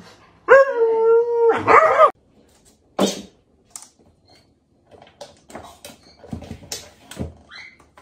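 Husky howling: one long, held, pitched note for about a second and a half that cuts off abruptly. After it come faint, scattered light taps and scuffs.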